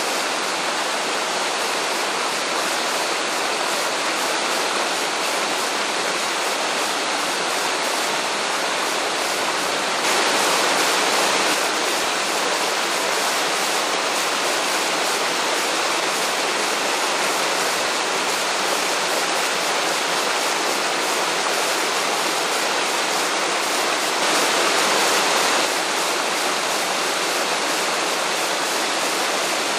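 Large waterfall falling in a steady, full rush of water, twice growing louder for about a second and a half.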